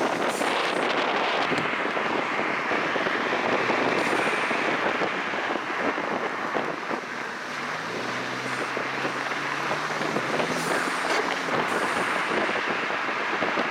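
Wind rushing and buffeting over the microphone with road noise inside a moving Volkswagen Jetta with its windows down, a low engine hum coming through more plainly in the second half. No distinct turbo whoosh stands out from the wind.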